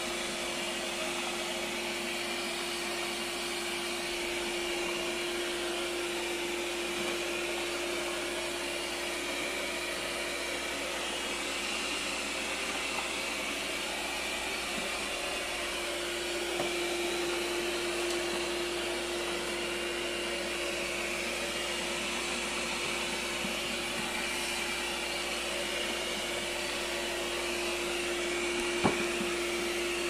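Lydsto W2 robot vacuum running: a steady whir with a constant hum tone, and a single sharp tap near the end.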